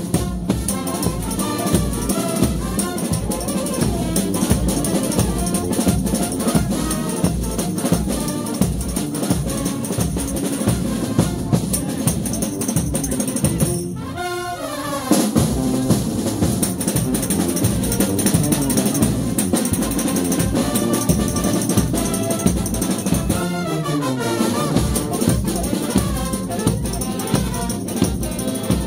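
Frevo street band playing: brass with a steady, driving drum beat, and a short dip in the music about halfway through.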